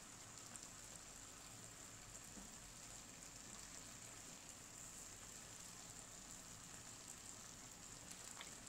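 Near silence: a faint, steady sizzling hiss from the aviyal cooking in an open steel pot on the stove.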